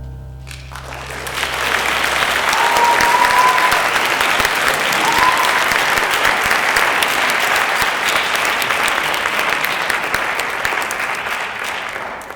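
Concert audience applauding, with the last instrumental chord dying away under the first couple of seconds and two brief high whistles from the crowd. The clapping fades near the end.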